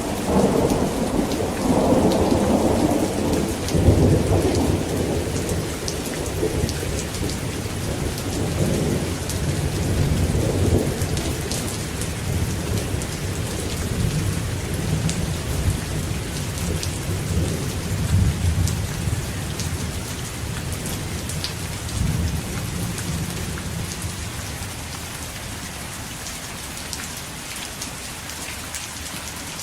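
Rain falling steadily with a long roll of thunder rumbling and swelling several times, dying away in the last third so that the rain is left on its own.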